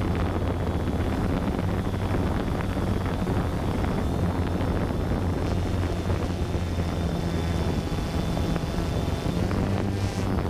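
DJI Phantom 2 quadcopter's motors and propellers whirring steadily, a low hum with a thin high whine above it, picked up by the GoPro on the drone itself, with wind buffeting the microphone.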